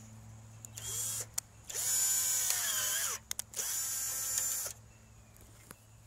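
Cordless drill boring holes into aluminum coil tubing in three bursts: a short one about a second in, then two longer runs, the motor whine rising as it spins up and sagging as the bit cuts.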